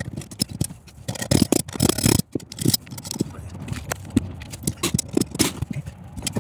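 Handling noise from thick 6-gauge power cable and a steel electrical junction box being worked on a plywood board: a rapid, irregular run of knocks, clicks and scrapes.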